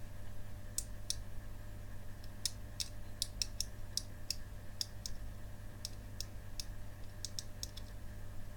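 Series of small, sharp, irregularly spaced clicks from the opened laptop hard drive's head assembly as it is worked on. The head arm is bent and keeps sticking instead of seating properly.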